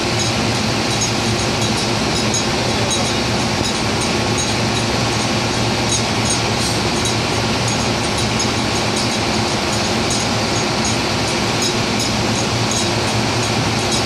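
Offshore drilling rig machinery running: a loud, steady mechanical drone, a constant low hum under a wide wash of noise.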